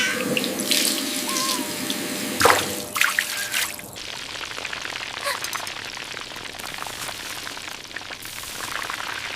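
Water pouring and trickling, with a few sharp knocks in the first four seconds and a steady fine patter after.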